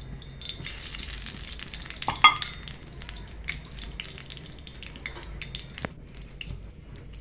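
Hot cooking oil in a kadhai sizzling and crackling, with scattered sharp pops as it heats. A single loud metallic clink rings out about two seconds in.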